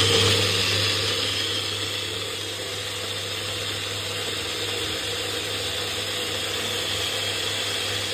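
NutriPro personal bullet blender running at full speed, blending oats, almonds and milk into a smoothie: a steady motor whir over a low hum, a little louder in the first couple of seconds before it settles.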